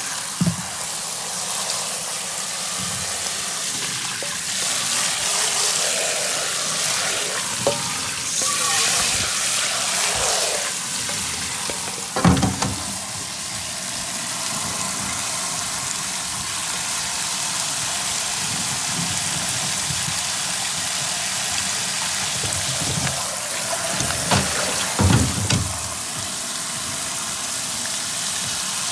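Tap water running in a steady stream onto salted, cut cabbage in a plastic colander, rinsing the salt out. A couple of brief knocks come through it, about halfway and again near the end.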